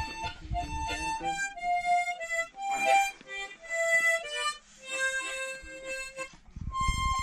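Harmonica playing a melody of held notes, changing pitch every half second or so.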